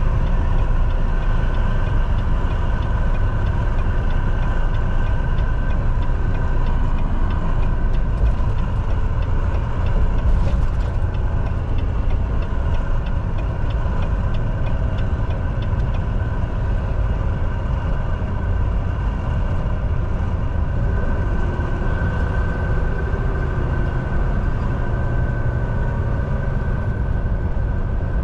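Semi truck's diesel engine and road noise droning steadily in the cab while driving on the highway, with a brief louder burst of noise about ten seconds in.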